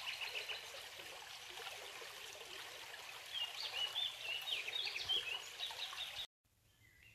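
Small forest stream trickling and rippling steadily, with a bird chirping repeatedly over it from about three seconds in. The sound cuts off suddenly about six seconds in.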